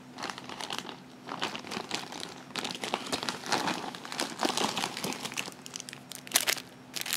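Foil-lined plastic snack packets crinkling and crackling as they are handled and set down, in irregular bursts throughout.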